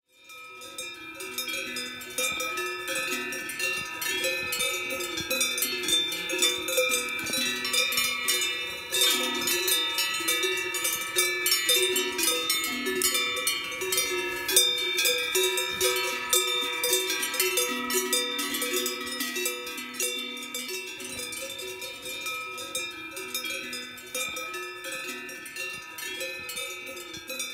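Many cowbells ringing together in an irregular, continuous jangle, as from a herd of Alpine cattle wearing bells; slightly quieter over the last few seconds.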